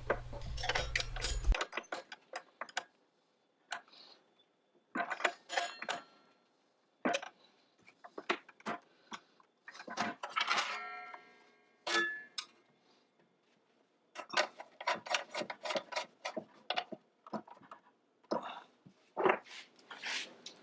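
Metal wrench and hand-tool clicks and clinks on the arbor bolt and blade hardware of a miter saw, with the bolt being tightened. The clinks come irregularly with silent gaps between them, and one clink about ten seconds in rings briefly.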